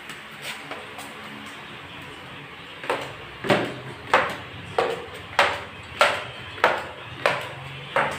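Footsteps going down wooden stairs: about nine even footfalls, roughly one every 0.6 seconds, starting about three seconds in.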